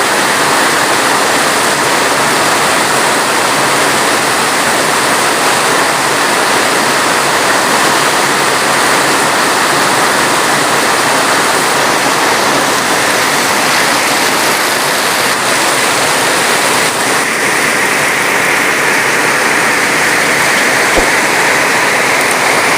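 Heavy rain falling steadily as a dense, even hiss, with no thunder, and a single faint click near the end.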